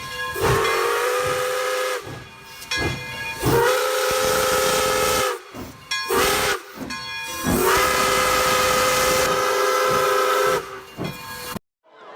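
Steam locomotive whistle sound effect: three long whistle blasts, each sliding up slightly as it starts, over hissing steam. The last blast is the longest, and the sound cuts off abruptly near the end.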